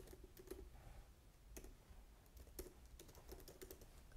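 Faint typing on a computer keyboard: a run of irregularly spaced key clicks.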